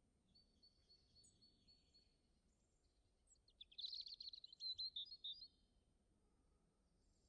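Faint birdsong: a run of short, evenly repeated high chirps, then a louder, quicker phrase of notes in the middle.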